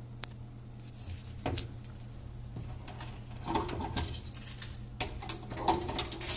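Commercial dishwasher running with a steady low hum. Over it come scattered clicks, knocks and light metallic clatter, thickest in the second half.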